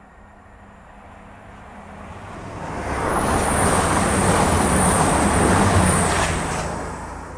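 An EMR Intercity diesel passenger train running through the station at speed: its rumble builds from about two seconds in, is loudest for three or four seconds as the coaches pass close by, then fades. A thin, high, steady whine rides over the rumble while the coaches pass.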